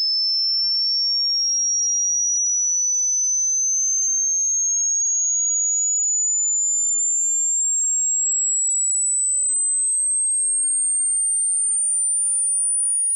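Synthesized pure sine tone of the kind used as a tinnitus sound effect: a single high-pitched ringing, steady in loudness, gliding slowly and evenly upward in pitch.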